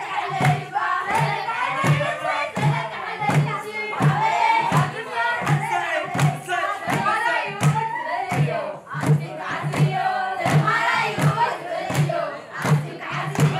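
Girls and young women singing Ashenda songs together in a group to a steady, even drumbeat.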